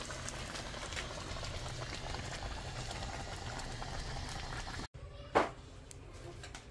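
Seafood in butter and chilli sauce boiling in a pot, a steady bubbling and crackling. It stops abruptly about five seconds in, and a single sharp knock follows.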